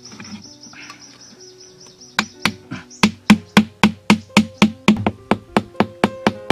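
Hammer driving a stake at the bottom of a metal can trap: rapid, evenly spaced sharp strikes, about four a second, starting about two seconds in. Before the hammering, a high chirp repeats several times a second.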